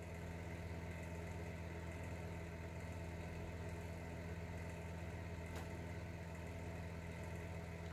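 Faint steady low hum, with one faint click about five and a half seconds in.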